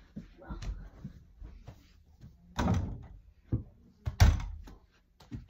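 A series of irregular thumps and knocks from a small basketball being dribbled and thrown at an over-the-door mini hoop, striking the backboard and wooden door. The loudest knock comes a little past four seconds in.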